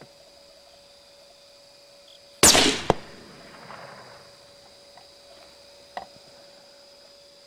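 A single rifle shot about two and a half seconds in, loud and short with a brief fading tail, followed by a second sharp crack about half a second later.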